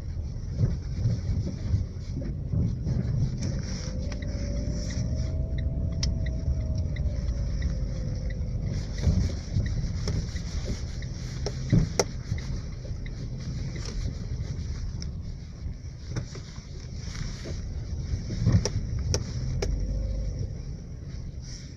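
Lada XRAY on the move, with steady road rumble and several sharp knocks from the steering, the loudest about twelve seconds and eighteen seconds in: a steering knock.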